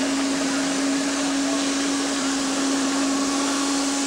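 A miniature live-steam locomotive's steam whistle blowing one long steady note over a loud hiss of steam.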